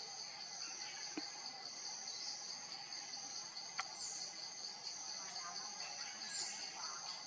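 Steady high-pitched insect chorus of crickets or cicadas, an unbroken drone, with a few faint short bird notes over it and a single sharp tick near the middle.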